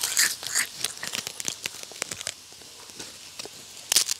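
Crisp crunching and crackling of fried prawn crackers being bitten and chewed, a dense run of small cracks that thins out after about two seconds, with a louder crunch near the end.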